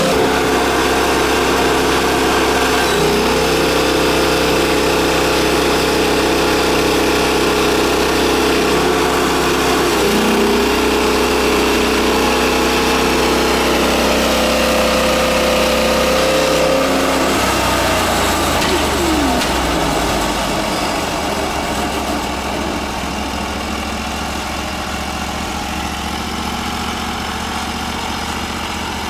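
Small petrol engine running steadily at high speed, its pitch dipping briefly twice, then throttled back about 17 seconds in and left idling.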